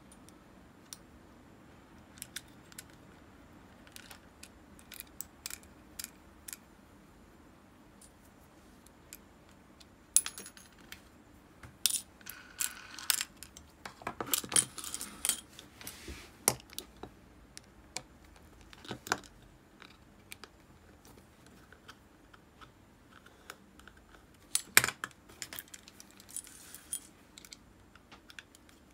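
Small metal parts of an Abu Garcia Ambassadeur 5500C baitcasting reel clicking and clinking as the reel is taken apart and its parts are set into small metal cups. Scattered light clicks come first, then a busier run of clinks around the middle and one sharp clink later on.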